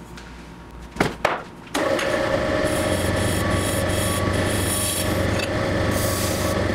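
Metal turning tool scraping a plaster mould as it spins on the wheel: a loud, steady rasping scrape with a hum under it. It starts about two seconds in, after two sharp knocks, and cuts off abruptly at the end.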